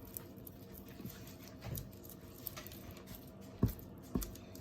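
Homemade clear-glue slime being kneaded by hand, making faint sticky squishes and small clicks, with two sharper ones near the end. The slime is still sticky and not yet fully activated.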